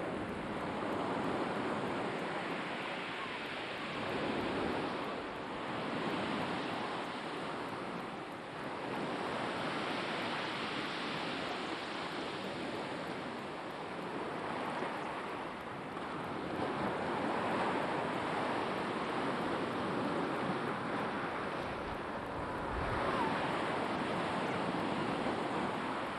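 Black Sea surf breaking and washing on the shore, a steady rush of water that swells and falls back every few seconds.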